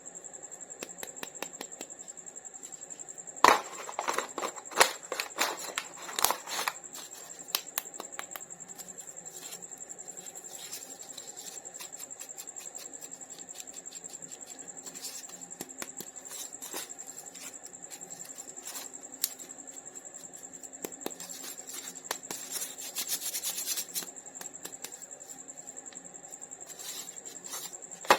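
Close-up handling of toy packaging during an unboxing: a run of small clicks, taps and scratching crackles, busiest about four to seven seconds in and again a little after twenty seconds, over a faint steady high-pitched whine.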